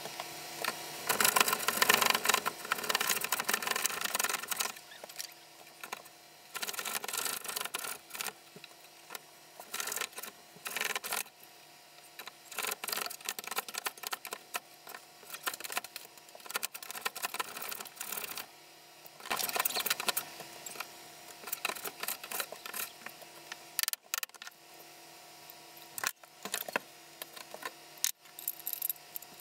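Metal combination plane cutting a groove along the edge of a board: repeated rasping strokes of the iron shaving the wood, each a second or two long. A few sharp knocks near the end.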